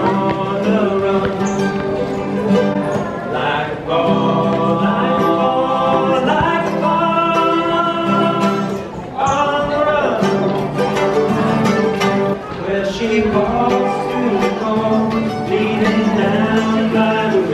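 Live bluegrass song: acoustic guitar and mandolin played while two men sing together into one microphone, with a long held note ending about nine seconds in.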